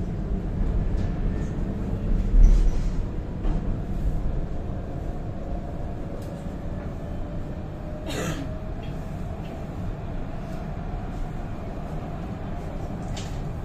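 Interior running noise of a tram moving along its rails: a steady low rumble, with a heavier jolt about two and a half seconds in and a short hiss about eight seconds in, followed by a faint steady whine.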